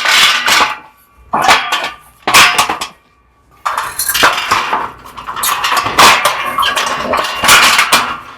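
Steel baker scaffold parts clanking and rattling as the side rails are handled and clipped onto the frame: three short bursts of knocks, a brief pause about three seconds in, then several seconds of continuous metallic clatter.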